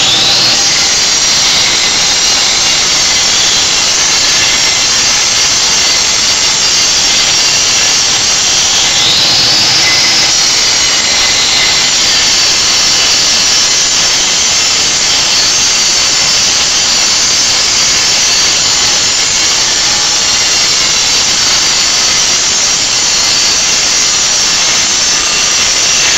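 Angle grinder running and grinding down a weld: a loud, steady high whine with grinding hiss. About nine seconds in, the pitch rises as the disc speeds back up.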